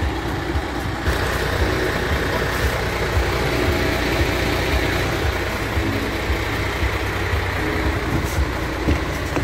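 MAN TGX 18.440 tractor unit's 12.4-litre straight-six diesel idling steadily with a low, even rumble.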